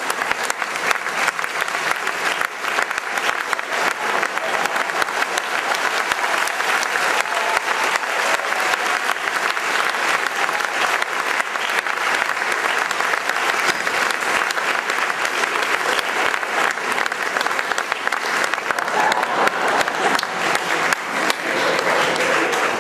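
Theatre audience applauding steadily, a dense patter of many hands clapping.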